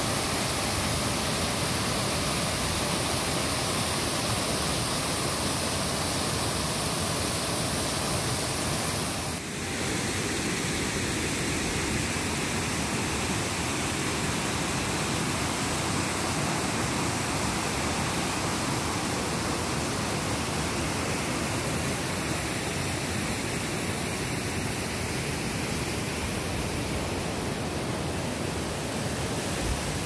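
Steady rushing of a creek and small waterfall, an even hiss of moving water, with a brief dip about nine and a half seconds in.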